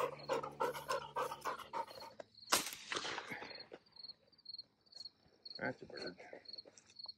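Yellow Labrador retriever panting in quick, rhythmic breaths, cut off by a short loud burst of noise about two and a half seconds in. After that, crickets chirping in a steady, pulsing high trill.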